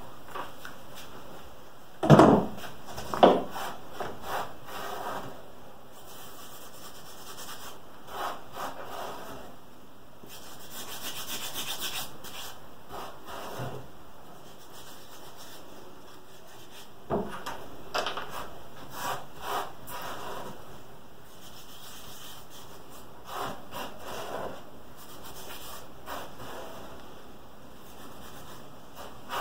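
A glued wooden piece being handled and rubbed by hand at a workbench: irregular wood-on-wood rubbing and scraping strokes, with two sharp wooden knocks a few seconds in and another about midway.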